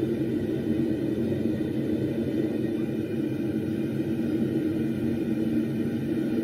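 Homemade two-burner propane forge running: a steady roar from its burners firing.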